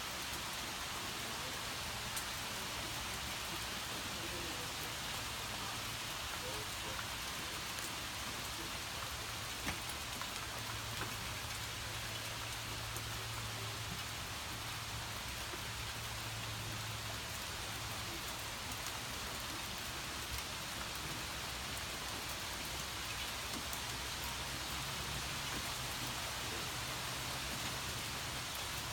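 Heavy thunderstorm rain pouring down steadily: an even hiss of the downpour with scattered ticks of drops. A low rumble swells for several seconds around the middle.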